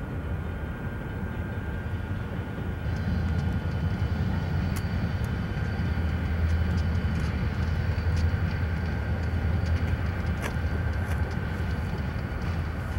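Diesel freight locomotives running at a rail junction: a steady low rumble that grows louder about three seconds in, with a few faint sharp clicks.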